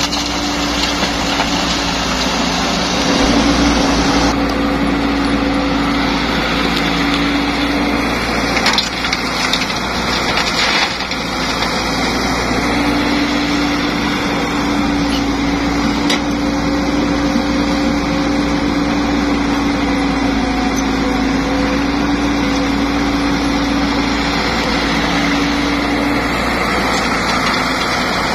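Caterpillar E120B excavator's diesel engine running under hydraulic load through a dig-and-dump cycle, its hum swelling and easing as the arm works. Rough crashing and scraping of rock and soil in the bucket, with dirt spilling into a dump truck bed.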